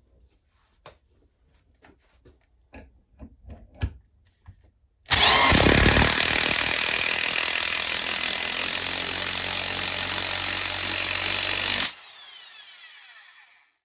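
A few light clicks and knocks of handling, then a Chicago Electric impact wrench runs loudly for about seven seconds. It cuts off suddenly, and its motor winds down with a falling whine.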